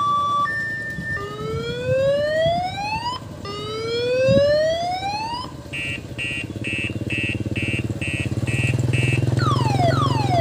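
Electronic siren of an odong-odong village tourist train cycling through its tones. It goes from an alternating two-tone to two long rising whoops, then a run of quick beeps about two and a half a second, and near the end a string of fast falling sweeps. A steady low engine rumble runs beneath.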